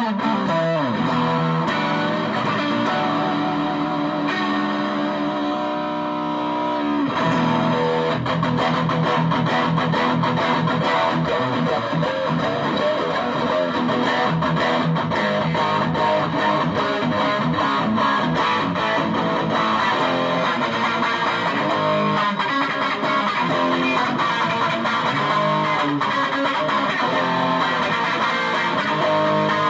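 Electric guitar played through a TC Electronic Dark Matter distortion pedal: a chord left to ring for about the first seven seconds, then faster riffing with chords and picked notes.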